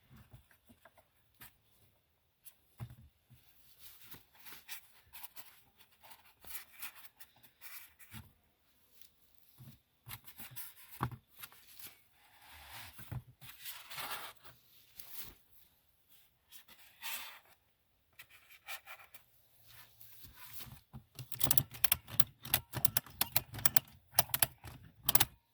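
Ratchet straps being handled and fastened around foam insulation board on a beehive: scattered scraping and rustling with short clicks, turning into a dense, louder run of clicks over the last few seconds.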